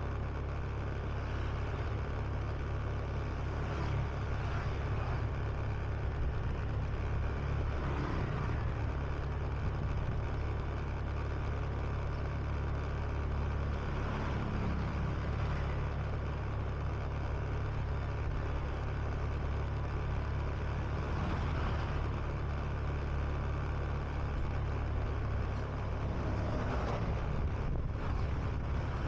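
Honda Beat scooter's single-cylinder engine running steadily while riding, mixed with wind and road noise at the rider's chest. Other traffic swells past now and then.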